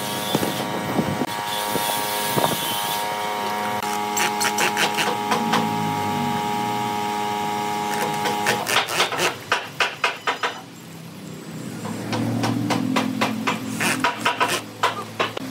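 Cordless drill driving screws into pallet wood: a steady motor whine for about eight seconds, then a quick run of sharp clicks. After a short lull the drill runs again, with more clicks near the end.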